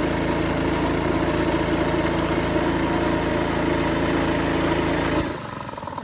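Honda gas engine of a Stanley Bostitch air compressor running steadily at low idle. About five seconds in the sound changes suddenly: the low hum drops away, leaving a thinner, pulsing engine sound with a high hiss.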